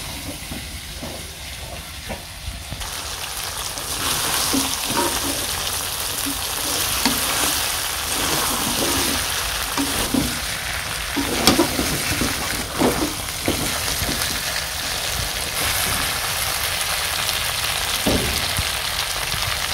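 Food sizzling in hot oil in a cooking pot, with a spatula stirring and scraping against the pot now and then. The sizzling gets louder a few seconds in.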